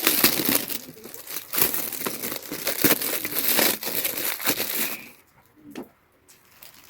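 Gift wrapping being crinkled and torn open by hand on a small package, a dense rustling that dies away about five seconds in, followed by one soft knock.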